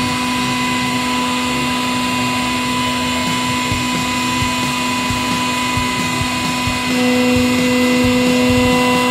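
A 100-ton hydraulic press's pump unit running with a steady hum and whine as its guillotine blade moves down. About seven seconds in the tone shifts and grows a little louder.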